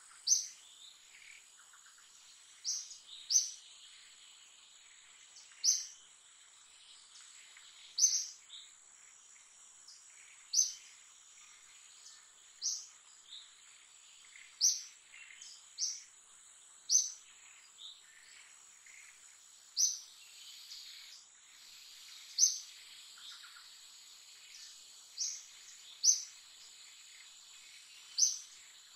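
Outdoor ambience: a bird repeating a short, high call every two to three seconds, sometimes twice in quick succession, over a steady high-pitched insect drone.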